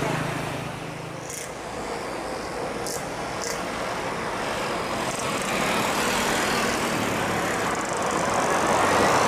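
Jet engines of a Batik Air Airbus A320-214 at take-off power, a growing roar that gets louder through the second half, with a faint rising whine near the end.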